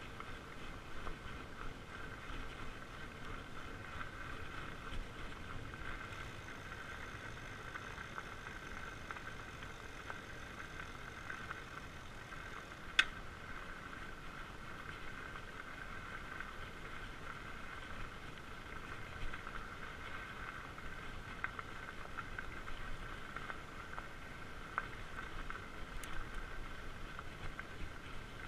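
Fat bike tyres rolling steadily over a dirt path, giving a constant hum over low rumble, with one sharp click about halfway through.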